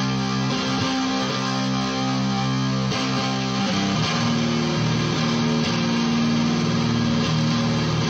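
Electric guitar played through a fuzz pedal: held, fuzzy strummed chords that ring on and change a few times.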